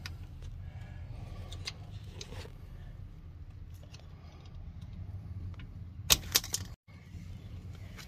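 Small metallic clinks and rattles of hand tools (a ratchet and socket) being handled on concrete, with two sharp clacks about six seconds in, over a steady low background hum.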